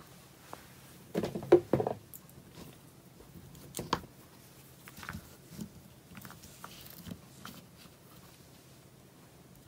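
Rolls of washi tape being handled and set down: a quick cluster of knocks and clatter a little over a second in, a sharper knock just before four seconds, then light scattered clicks and rustles.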